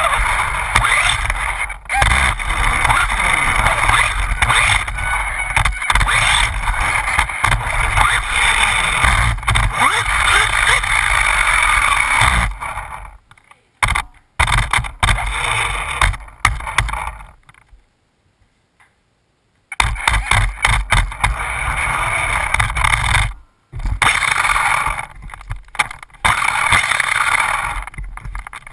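Losi Mini 8ight 1/16-scale electric RC buggy driving, its motor and drivetrain running loudly, with the sound dropping out to near silence a few times, briefly and once for about two seconds near the middle.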